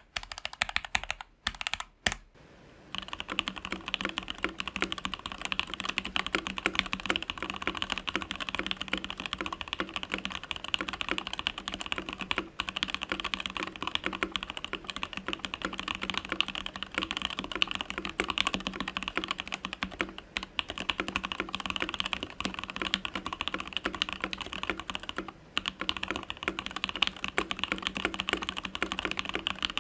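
Ikki68 Aurora mechanical keyboard with Lavender switches being typed on quickly and continuously, a dense run of keystroke clicks. It is nearly quiet with a few clicks for the first few seconds, then the typing runs without a break.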